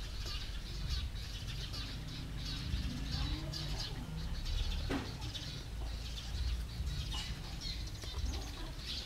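Small birds chirping over and over in the background, over a steady low rumble. There is a single sharp click about five seconds in.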